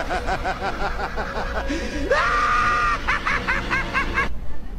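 A person laughing in high-pitched rhythmic bursts, with a rising squeal held for about a second in the middle. The laughter cuts off suddenly near the end.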